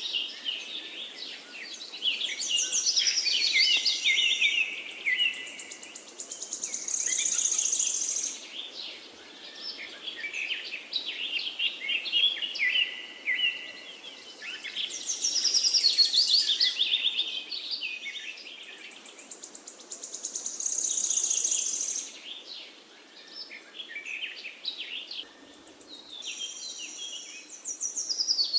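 Several songbirds chirping and trilling over one another, quick chirps and fast trills coming in waves every few seconds, over a faint steady background hiss. The same phrases recur about every thirteen seconds.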